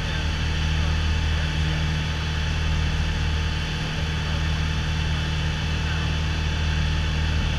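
Piper PA-28 Warrior's four-cylinder Lycoming engine and propeller droning steadily in flight, heard inside the cockpit.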